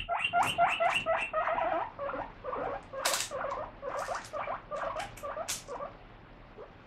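Guinea pig wheeking, the 'pui pui' call, in a quick run of short rising squeaks, about six a second at first, then slower and fainter until it stops near the end. It is excited begging for food, set off by lettuce being washed. A few sharp clicks sound over it in the middle.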